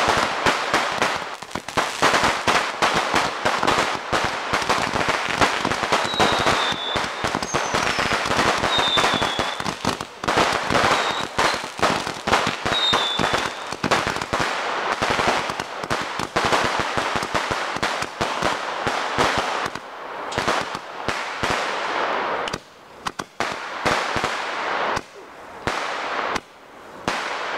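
Two fireworks going off at once: a dense, rapid run of sharp crackling bangs that thins into scattered groups of pops in the last several seconds. A few short falling whistles cut through in the first half.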